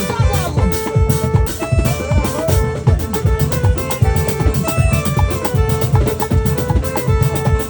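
Garifuna punta music: Garifuna hand drums play a fast, dense rhythm, with held melodic notes from another instrument over the drumming.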